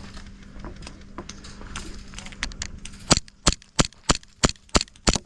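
Airsoft gun shots: faint scattered clicks, then from about three seconds in a string of about seven sharp, loud cracks at roughly three a second.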